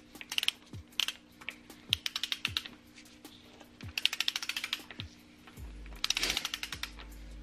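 Ratchet wrench clicking in several short, quick runs as a timing-belt pulley bolt on a Mitsubishi 420a engine is run down toward 20 ft-lb.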